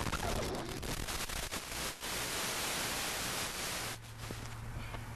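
Steady hiss and crackle of static on an analog FPV video link's audio, with scattered clicks. About four seconds in the hiss drops away and a low steady hum is left.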